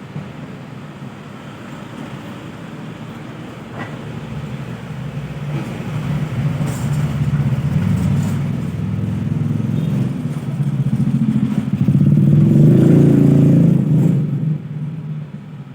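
A low engine hum that grows louder over several seconds, is loudest a little before the end, then falls away.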